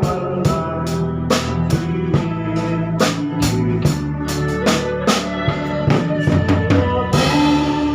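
Live band music without vocals: a drum kit keeps a steady beat of about two to three strokes a second under held keyboard chords, with a cymbal wash near the end.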